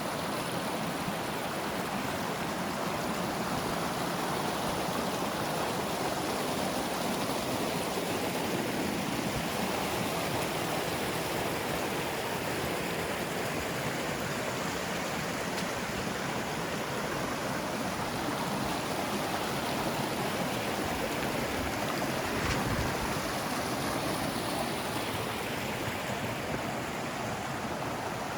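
Rushing water of a mountain stream: a steady, even rush.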